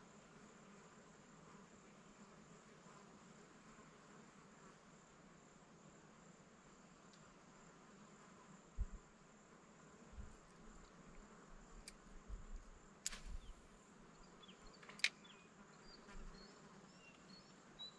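Faint, steady high-pitched insect chorus in the background. In the second half come a few low knocks and two sharp clicks.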